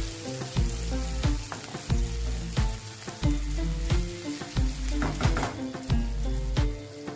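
Background music with a steady beat, and under it the sizzle of green bell peppers and red onions frying in a hot oiled pan.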